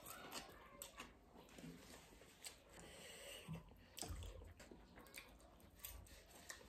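Faint sounds of eating noodles: quiet chewing with scattered small clicks of forks against plates, otherwise near silence.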